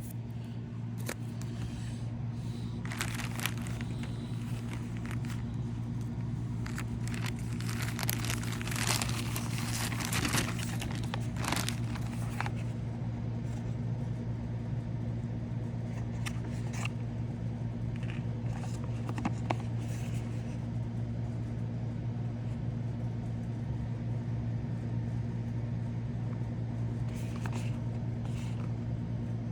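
Packaging of a cable being handled and unwrapped, crinkling and rustling in short bursts, over a steady low hum.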